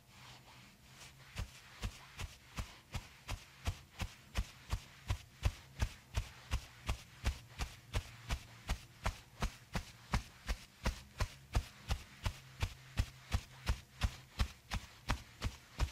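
Steady rhythmic tapping, about three taps a second, starting about a second and a half in and growing louder, over a faint low hum.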